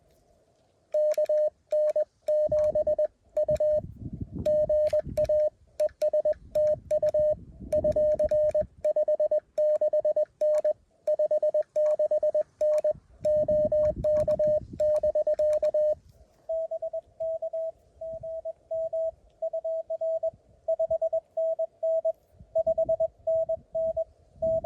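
Morse code from a Mountain Topper CW transceiver: a keyed tone of dots and dashes, with a click at each keying, for about fifteen seconds. After a brief pause a slightly higher, quieter tone keys out more code.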